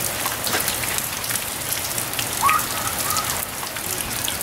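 Steady rain falling, with many small sharp drop ticks over an even hiss. A brief faint high call about two and a half seconds in.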